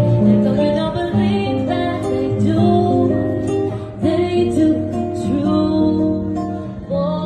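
Music: acoustic guitar playing with a singing voice.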